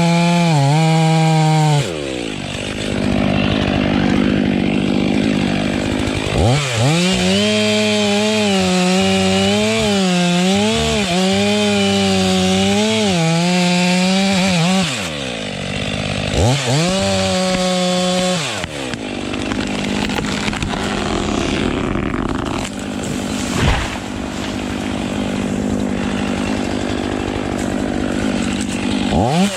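Chainsaw cutting through a tree. The engine drops in pitch and turns rough while the chain is in the wood, and revs back up, wavering, between cuts. Its pitch rises again right at the end.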